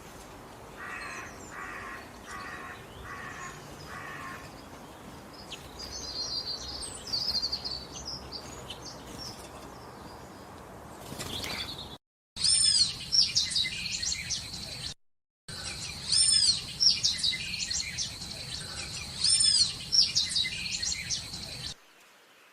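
Wild birds singing: five evenly spaced calls at the start, then scattered high chirps. About twelve seconds in, the sound cuts abruptly to a louder passage of rapid, arching high chirps over a steady high whistle, broken twice by brief dropouts to silence, and it cuts off just before the end.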